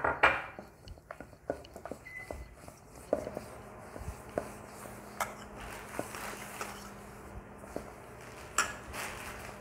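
A hand mixing wheat flour and semolina with water into dough in a stainless steel bowl: faint rubbing and squishing with scattered light clicks and ticks against the bowl.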